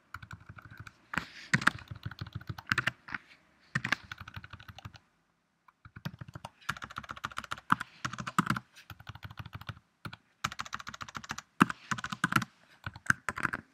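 Typing on a computer keyboard: quick runs of keystrokes, broken by short pauses about five seconds in and again just before ten seconds.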